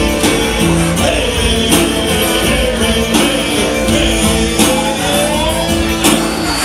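Live band music: a man singing over acoustic guitar and percussion, with regular percussion hits keeping the beat.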